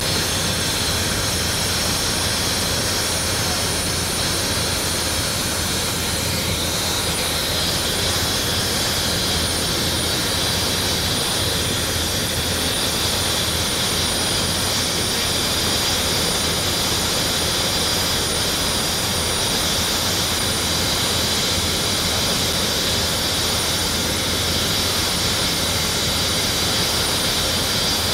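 Medical helicopter's turbine engine running steadily, with a high whine over an even rush.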